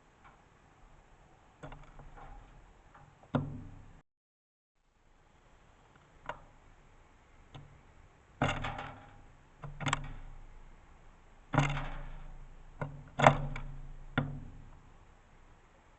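Irregular knocks and taps on a bird feeder as a Eurasian tree sparrow pecks and flicks seed about. There are about ten distinct hits, the loudest clustered in the second half. The sound drops out completely for about a second around four seconds in.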